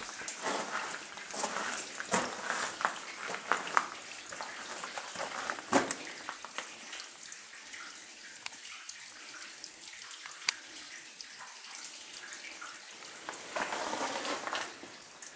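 Water dripping and trickling inside a coal mine tunnel, with footsteps and a few sharp clicks heard now and then.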